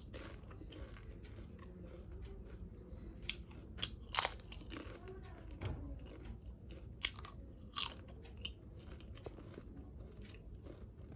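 A person chewing and biting into crunchy food, with irregular crunches; the loudest come about four and eight seconds in.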